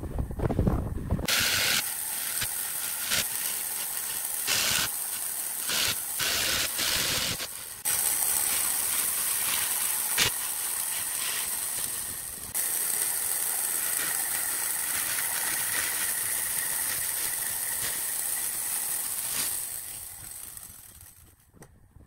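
Handheld electric jigsaw running, its blade cutting a curve through a wooden board; the saw stops near the end. A brief low rumble comes before it starts.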